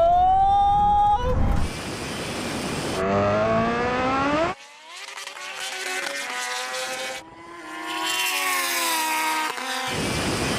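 Racing motorcycle engines accelerating hard at full throttle, their pitch climbing and dropping back at each gear change, in several short shots that cut abruptly from one to the next, with wind rush.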